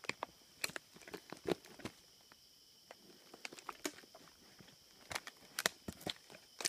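Footsteps through brush and grass, with dry twigs and dead wood crackling and snapping underfoot in an irregular series, a cluster of louder snaps about five to six seconds in.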